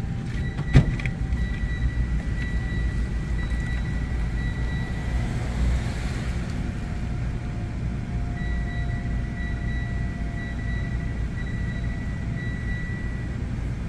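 Steady low rumble of a running engine, with a thin steady high whine over it that stops for a few seconds midway and then returns. A single sharp knock comes about a second in.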